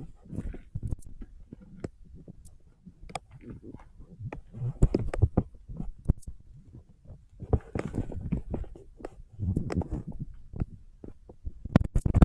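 Rummaging and handling objects close to the microphone, with irregular clicks, knocks and rustling, heaviest about five, eight and ten seconds in.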